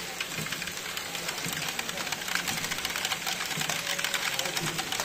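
LEGO Great Ball Contraption modules running: a dense, steady clatter of plastic parts and small balls rattling through the gear-driven lifts and stepper mechanisms.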